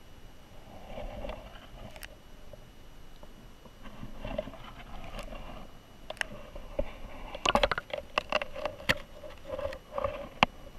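Underwater river sound picked up by a submerged camera: a steady, uneven wash of moving water with scattered sharp clicks and knocks, most of them bunched in a quick cluster about three-quarters of the way through.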